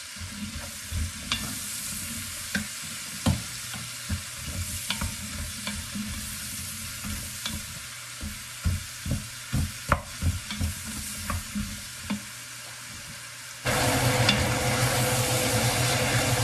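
Onions, carrots and garlic sizzling in an enamelled cast-iron Dutch oven as a wooden spoon stirs them, knocking against the pot again and again. Near the end a much louder steady hiss with a low hum sets in.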